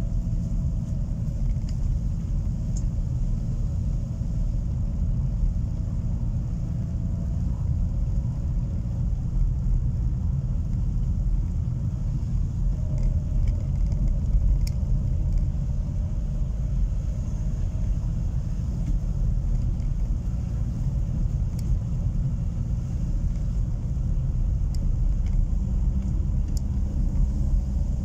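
Car driving slowly on a concrete road, heard from inside the cabin: a steady low rumble of engine and tyre noise, with a few faint clicks.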